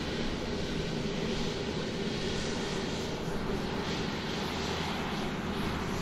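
Airplane engine noise: a steady, even drone with a low hum underneath, holding level throughout.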